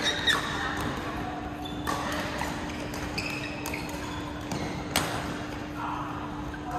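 Badminton rackets striking a shuttlecock in a rally: sharp cracks a second or two apart, the loudest about five seconds in, mixed with brief high squeaks of sneakers on the court floor. A steady low hum runs underneath.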